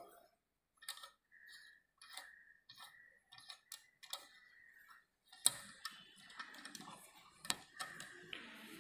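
Hand tap in a bar tap wrench being turned in a tapped hole in a metal plate held in a bench vise: faint, scattered metallic clicks and ticks, with a few sharper clicks in the second half, as the tap is backed out of the threaded hole.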